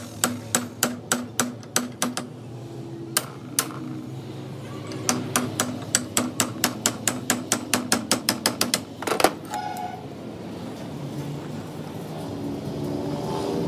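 Hammer driving a cold chisel against the rim of a steel tie rod end's ball socket: quick metal-on-metal strikes about four to five a second, in two runs with a short pause between, then one louder, ringing blow about nine seconds in.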